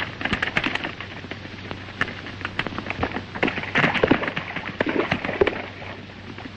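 Horses galloping: a fast, irregular clatter of hoofbeats over the steady hiss and hum of an old film soundtrack.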